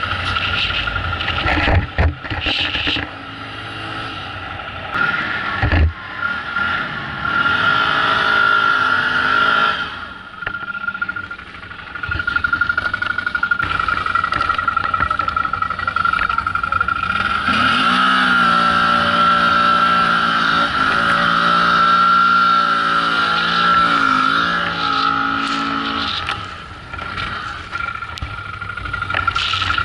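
Can-Am quad's engine revving hard under load while ploughing through deep snow. Its pitch climbs, eases off, then climbs again and is held high for several seconds before dropping back. There is a sharp knock near the start and another a few seconds later.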